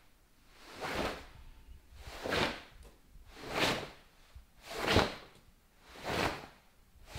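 Cotton karate gi sleeves swishing with each straight punch as the fists are thrown and pulled back in alternation: five swishes in an even rhythm, about one every 1.3 seconds.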